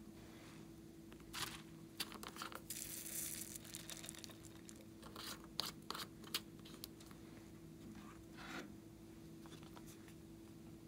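Soft plastic squeeze bottle being handled and squeezed by hand: quiet crinkling with a run of sharp crackles and clicks, over a faint steady hum.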